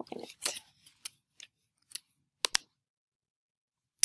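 Computer keyboard keystrokes and mouse clicks: a quick run of typing at the start, then a handful of separate sharp clicks, including a close pair about two and a half seconds in.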